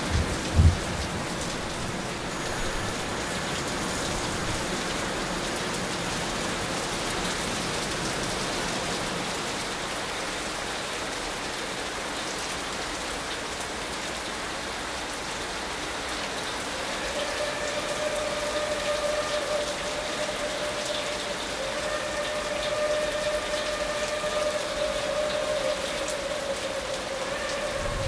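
Steady rain falling, with a brief loud thump under a second in. From about two-thirds of the way through, a long steady pitched tone with several notes stacked above it sounds over the rain.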